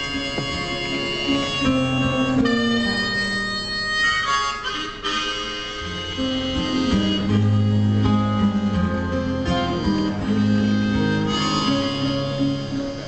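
Live rock-pop song: acoustic guitar played over drums, with a sustained reedy melody line held on long notes above it.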